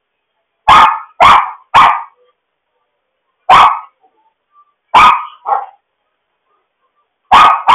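Small dog barking in short, sharp barks: three in quick succession about a second in, then single barks and pairs every second or two, picked up by a pet camera's microphone.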